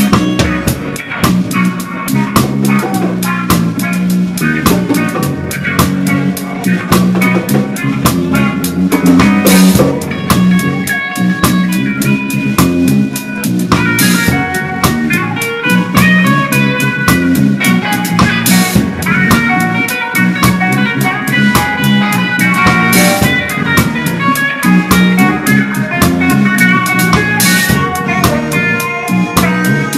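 Reggae band playing live, heard from beside the drum kit: drums and cymbals up close, with guitar and bass behind. A cymbal crash comes every four to five seconds.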